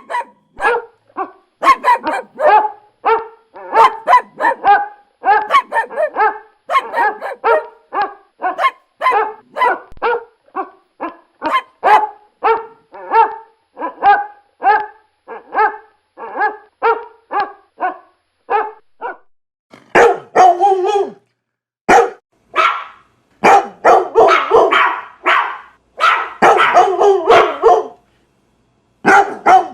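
A dog barking over and over in a steady rhythm, about two barks a second. After a short pause about two-thirds of the way in, the barking comes thicker and faster, then stops briefly and starts again near the end.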